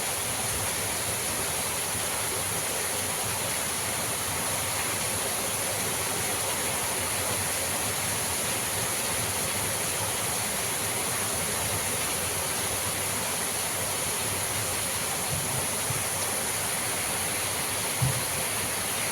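Strong wind rushing steadily through pine trees, an even roar without a break. A single brief knock sounds near the end.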